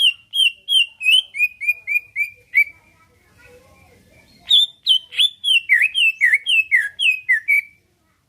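A cucak ijo (green leafbird) singing: two runs of loud, repeated whistled notes, about three a second, each note sliding downward, with a pause of about two seconds between the runs.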